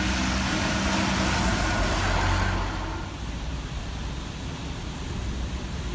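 Road traffic on a wet city street: a bus engine running and tyres hissing on the wet road. About three seconds in it cuts to a quieter, even outdoor hiss.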